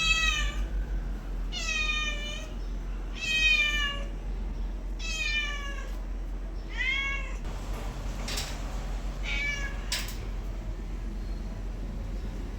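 Domestic cat meowing repeatedly, about six meows in a row, several falling in pitch, with gaps of about a second between them. Two sharp clicks come near the end.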